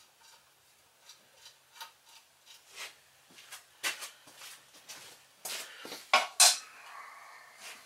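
Metal hand tools and bolts clinking as they are handled: scattered light clinks, with two sharp louder ones a little past six seconds in.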